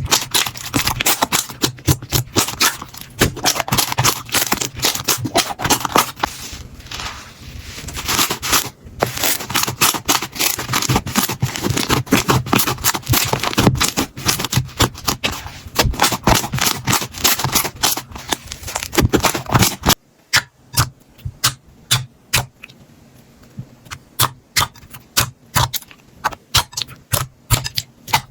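Slime being squeezed and pressed by hand, making dense, rapid crackling and popping clicks. About twenty seconds in it changes to sparser, separate sharp pops over a quieter background.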